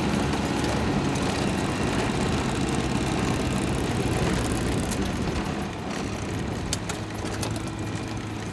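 Off-road utility vehicle's engine running while driving along a bumpy grass track, easing off a little near the end, with a few sharp clicks and rattles.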